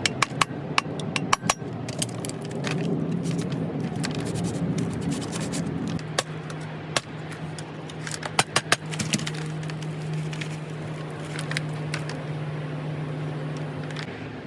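Small metal parts and hand tools clinking and scraping during work on an old electric motor, with bunches of sharp clicks near the start and again about two-thirds of the way in, over a steady low hum that stops shortly before the end.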